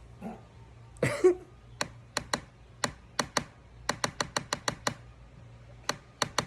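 The sharp, pointed end of a pencil tapping on a laptop: about fifteen crisp ticks in uneven clusters, a quick run of six near the middle, after one louder, duller knock about a second in.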